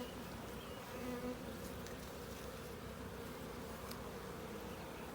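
Honeybees buzzing steadily around an opened hive as its frames are lifted. The hum swells briefly about a second in, as a bee passes close.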